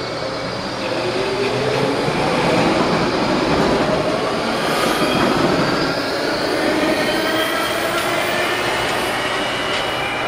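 Budd-built Baltimore Metro Subway train pulling out along the platform at close range: the traction motors whine, rising in pitch as it gathers speed, over steady wheel and rail noise.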